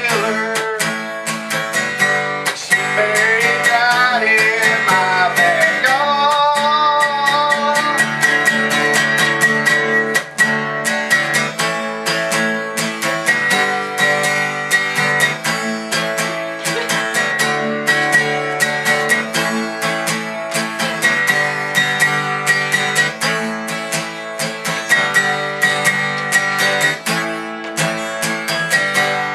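Steel-string acoustic guitar strummed steadily in a chord accompaniment, with quick, even strum strokes.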